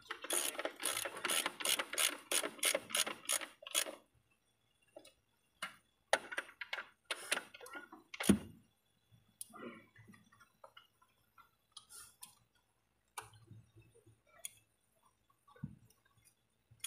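Ratchet wrench with a long socket extension turning a bolt on the cylinder head of a Toyota 2KD diesel engine: a fast run of clicks, about four a second, for the first few seconds. Then scattered clicks and metal tool knocks, one louder knock about halfway through.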